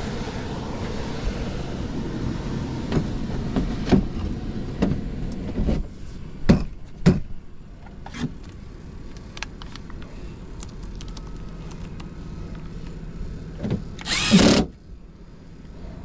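The running air handler's steady blower noise, which cuts off about six seconds in. Scattered clicks and knocks follow, then near the end a Milwaukee cordless impact driver spins briefly, the loudest sound, as the air handler's panel screws come out.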